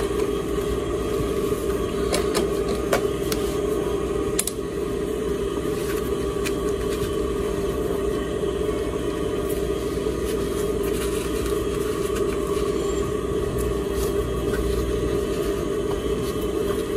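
Brother industrial sewing machine running with a steady hum while fabric is stitched, with a few light clicks in the first few seconds.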